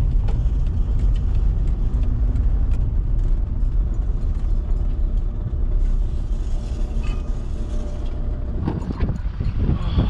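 Old Volkswagen van's diesel engine running at low speed, heard from inside the cab as the van pulls into a fuel station, with a few knocks and rattles near the end.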